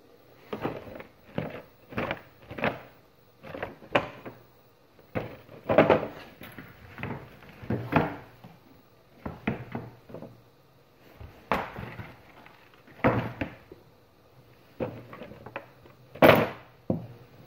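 Cardboard action-figure box with a clear plastic window being handled and turned over: an irregular run of knocks, taps and crinkly plastic rustles, one or two a second, with the loudest knock near the end.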